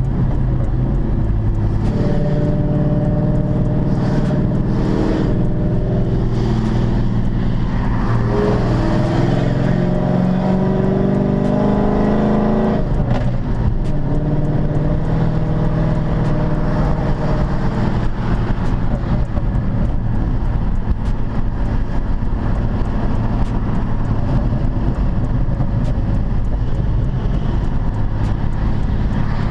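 2006 Dodge Charger's 5.7-litre Hemi V8 heard from inside the cabin while driving on the road. The engine note climbs under acceleration for about ten seconds and drops away suddenly about 13 seconds in. After that it settles into a steady cruise with tyre and road noise.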